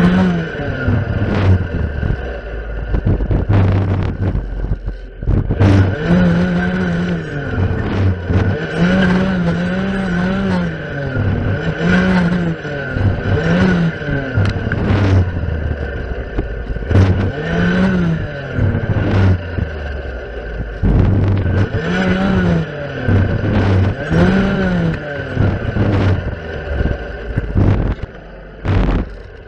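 Stihl FS 460 clearing saw's two-stroke engine revving up and down over and over as its circular blade cuts through saplings and undergrowth, with sharp clicks as the blade strikes stems. It drops to a lower, quieter run near the end.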